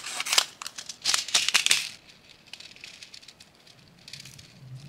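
A plastic sprinkles packet crinkling sharply as it is cut open with scissors for about the first two seconds. Then the small bead sprinkles rattle and patter lightly as they are poured onto a toy slime macaron.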